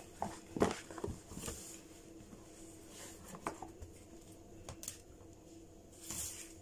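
Quiet handling of a gift's packaging being opened: scattered light taps, clicks and short rustles, busiest in the first second and a half.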